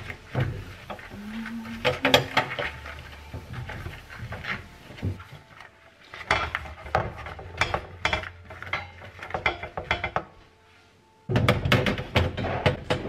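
Metal gas-hob grates clattering and clinking against the countertop and hob as they are handled and wiped, in runs of knocks with short pauses. The sound drops out briefly near the end, then the clinking resumes.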